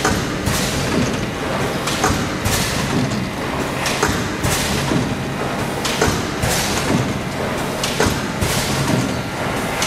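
GC-650/500 automatic plastic thermoforming machine running: a steady hum with sharp knocks and thumps repeating in a cycle of about two seconds.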